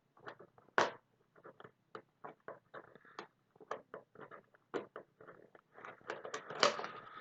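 Small plastic packaging and Heroclix miniatures being handled: irregular light crinkles and clicks, one sharper click about a second in and a busier cluster near the end.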